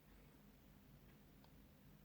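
Near silence: room tone with a faint steady low hum and a couple of faint clicks.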